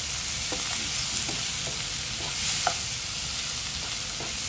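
Onion, cauliflower and eggplant sizzling in hot oil in a non-stick wok as a wooden spatula stirs them, with scattered light taps and scrapes of the spatula against the pan.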